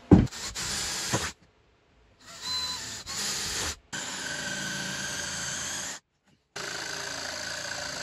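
Cordless Ozito power tools working the end of a pallet-wood drum in short clips that start and stop abruptly: a jigsaw cutting, then a belt sander running steadily.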